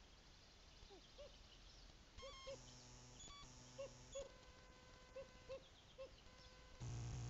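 Faint short soft hoots from a common loon, every second or so and sometimes in pairs. Camera noise, an electrical buzz with many overtones, comes and goes in three stretches and is loudest near the end.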